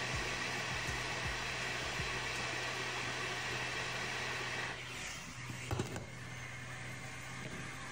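Hot-air rework station blowing steadily while flash chips are soldered onto a MacBook Pro logic board, cutting off a little under five seconds in, followed by a few light clicks.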